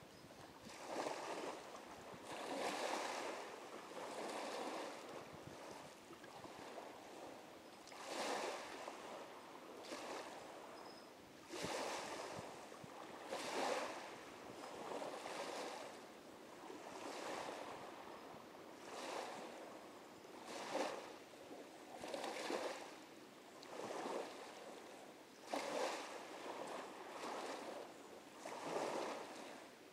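Small waves lapping against the river bank, a soft wash every second or two.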